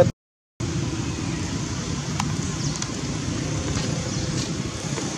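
Steady outdoor background rumble, with a brief dropout to total silence just after the start.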